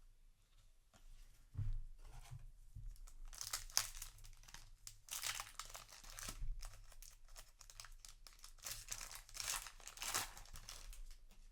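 Foil booster pack being torn open and its wrapper crinkled, with cards rustling in the hands; three louder spells of crackling come and go.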